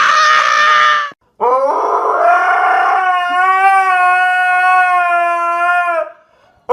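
A husky-type dog howling: one long howl that rises in pitch and then holds steady for about four seconds. It is preceded in the first second by a loud, shrill squealing sound that cuts off.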